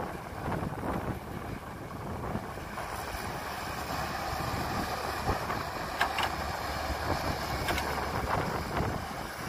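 Cat 312B hydraulic excavator's diesel engine running steadily under load as the machine swings and dumps buckets of soil into a dump truck, with a few sharp knocks as soil drops into the truck's bed about six and eight seconds in.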